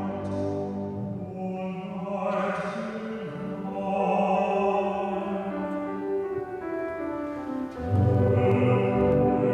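Choral music with sung voices, slow sustained chords changing every second or two, growing fuller and louder near the end.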